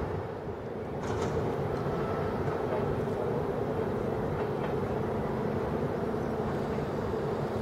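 Passenger train rolling slowly away over station pointwork: a steady low rumble with a few faint clicks.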